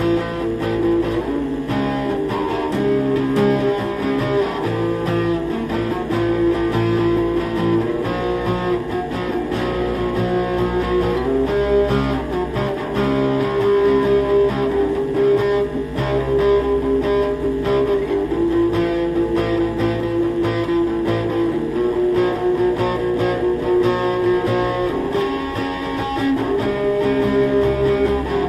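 Acoustic-electric guitar played through a distortion effect pedal into a speaker, sounding sustained notes that change pitch one after another.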